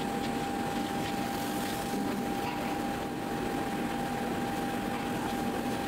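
Steady machine drone with a constant high whine held at one pitch throughout.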